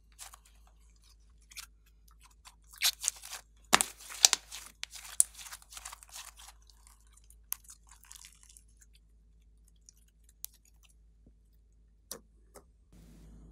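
Slime being squeezed and stretched by hand, making wet crackling and popping sounds. The crackles come in dense bursts a few seconds in, then thin out to a few scattered clicks.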